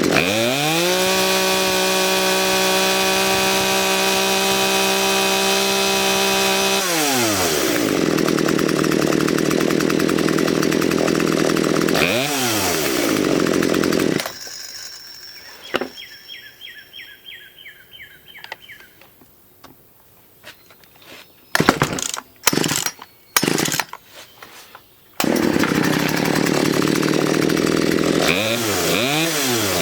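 Poulan P3816 chainsaw's 38cc two-stroke engine revved up to full throttle and held there for several seconds, then dropped back to idle, with one quick blip of the throttle. About halfway through the engine sound stops, leaving a few short loud bursts, then the saw runs again and is revved a few times near the end; it is running well after repair.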